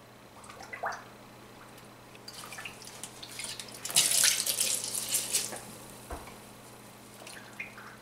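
Water dripping and splashing from a wet sponge as it soaks up the standing water in a dishwasher's drain sump. There is a louder stretch of splashing about four seconds in, lasting about a second and a half.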